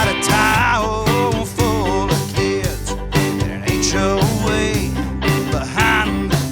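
A live country-rock band playing: drums keeping a steady beat under bass and guitars, with a melody line that bends and wavers in pitch.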